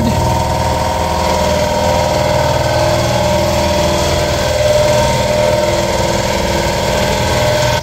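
A machine running steadily nearby, a little loud: an even mechanical hum with several steady tones that doesn't change.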